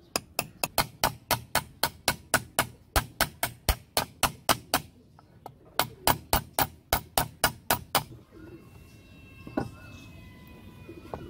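Hammer tapping a steel ball bearing into the bore of a wooden wheel to seat it: quick sharp strikes, about three or four a second, in two runs with a short pause about five seconds in. The strikes stop about eight seconds in.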